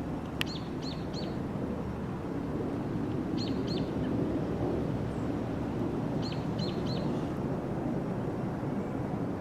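A small bird chirping in three quick runs of two or three high notes, over a steady low rumble, with one sharp click near the start.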